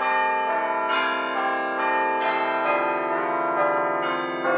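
Bells chiming a run of notes, a new note struck about every half second and each ringing on under the next.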